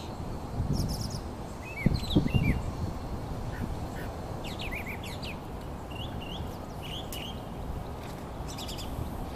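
Birds chirping, with short high calls scattered throughout over a steady background noise. A few low thumps come about two seconds in.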